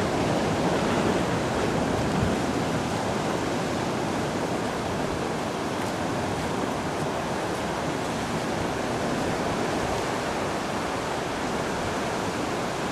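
Ocean surf: a steady wash of waves without distinct separate breaks.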